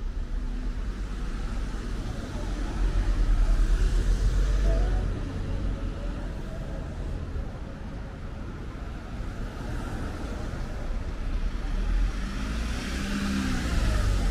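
City street traffic: road vehicles passing close by. The loudest pass comes a few seconds in, and another builds near the end.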